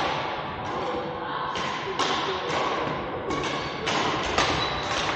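Badminton rackets striking a shuttlecock in a rally, irregular sharp hits each trailing off in the hall's echo, the crispest cracks about two seconds and four and a half seconds in. Voices murmur underneath.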